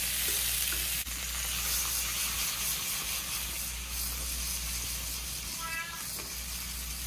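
Sliced zucchini, carrots and bell pepper sizzling in hot oil in a wok as they are stirred and flipped: a steady frying hiss.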